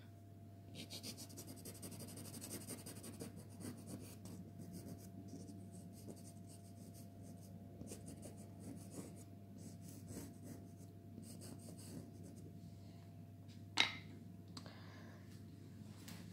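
Pastel pencil scratching and rubbing in short, irregular strokes on pastel card, faint throughout, with one sharp click near the end.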